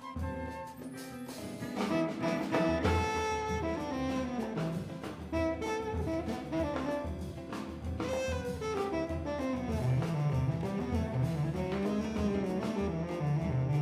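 Latin jazz band playing: a woodwind melody over drum kit, bass and percussion, the full band getting louder about two seconds in.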